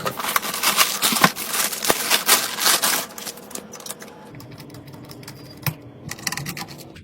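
A rapid run of sharp clicks and taps, dense for about the first three seconds, then fewer and softer.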